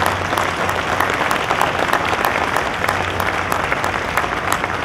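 Audience applauding: a dense, steady clatter of many hands clapping, over a low steady hum.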